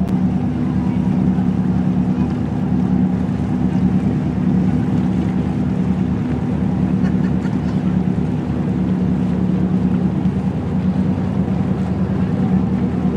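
Motorboat engine running at a steady speed, a constant low drone heard from aboard.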